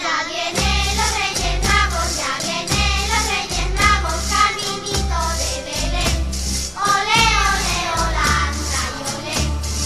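Background music: a sung song with a steady beat.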